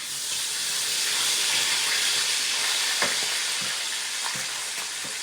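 Food sizzling in a frying pan: a steady hiss that swells at the start, with a few light clicks in the second half.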